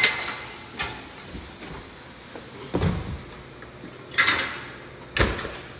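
Metal clacks and knocks of a pan of burger patties being set on an oven's wire rack and the rack pushed in, then a heavier thud just after five seconds as the oven door is shut.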